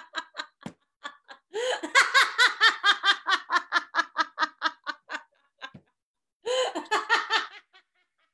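A woman laughing hard over a video call, in quick rhythmic bursts: three long fits with short pauses between them, then it dies away near the end.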